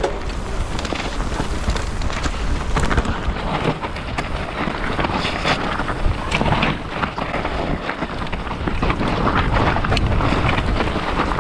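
A mountain bike riding down a dirt trail. Wind rushes over the camera microphone, and a low rumble runs under frequent knocks and rattles from the tyres and bike.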